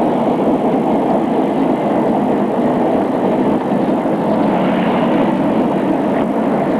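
T-72 tank running, a loud, steady mechanical noise.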